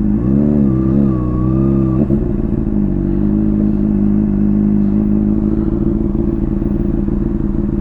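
Honda CBR600RR inline-four engine with a Hotbodies Stinger slip-on exhaust. Its pitch rises and falls a little for about the first two seconds, then it settles into a steady idle.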